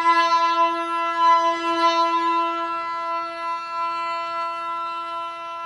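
Esraj, the bowed Indian string instrument, holding one long steady note that slowly grows quieter.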